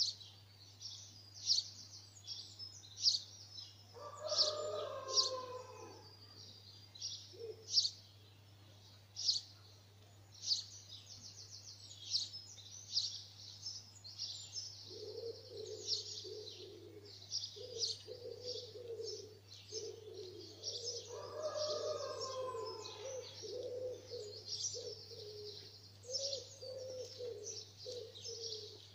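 Dawn chorus of garden birds: many short high chirps and trills throughout. A lower call repeats in short phrases through the second half.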